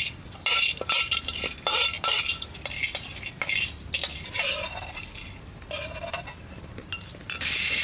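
Spatula scraping and clinking against a dry metal wok as whole spices are stirred, the spices rattling lightly on the metal, with short metallic rings after some strokes. A denser, louder rattle starts near the end.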